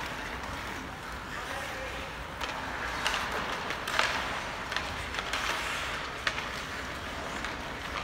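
Hockey play in a rink: a steady scraping hiss of skates, with sharp clacks of sticks and puck a handful of times.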